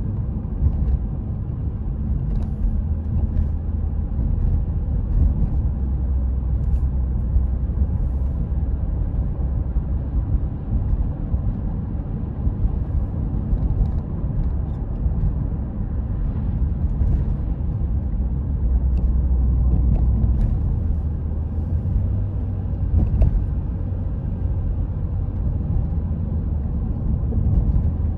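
Car driving at steady speed on a paved road, heard from inside the cabin: a continuous low rumble of engine and tyres, with a few faint ticks.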